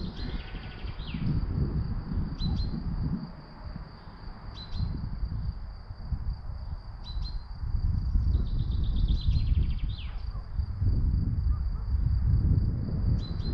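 A bird calling short chirps every two seconds or so, twice running into a quick falling trill, over a loud low rumble that rises and falls in gusts. A faint steady high tone sits beneath the chirps.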